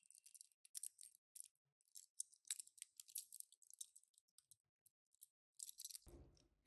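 Faint, quick, irregular clicks and light crinkles of small toy cars and their plastic packaging being handled, with a soft low bump about six seconds in.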